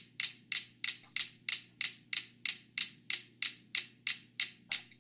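Five mechanical metronomes on a shared board ticking in unison, one sharp click about three and a half times a second. They have fallen into step because the board, rolling on its cans, passes energy between them.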